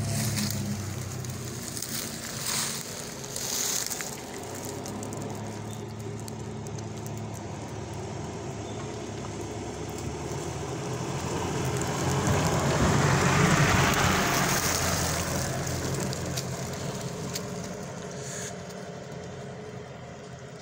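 Off-road 4x4 engines running on a dirt forest track, with tyres crunching over dry leaves and soil. Two brief knocks come a few seconds in. The sound swells around twelve to fifteen seconds in, as a pickup climbs over a mound close by, then fades.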